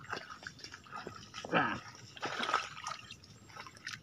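Hands sloshing and splashing in muddy water while digging out a flooded mud-crab burrow, with scattered wet slaps and drips. About a second and a half in, a short vocal sound falls in pitch, and a louder splash follows about a second later.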